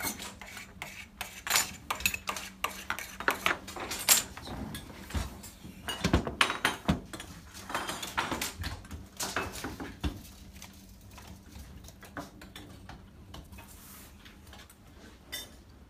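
Metallic clinking and clattering of copper pipe and hand pipe benders being handled, with many quick clinks for the first ten seconds or so, then sparser. A faint steady low hum runs underneath.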